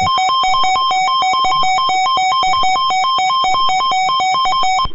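Emergency alert attention tone: a loud electronic tone switching rapidly back and forth between a low and a high pitch, about four times a second, then cutting off suddenly at the end. It signals that an emergency alert broadcast is about to begin.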